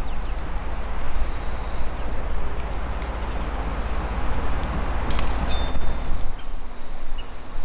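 Low steady outdoor rumble with a few light clicks of metal serving tongs against plates and a wooden tray about five seconds in. The rumble stops abruptly about six seconds in.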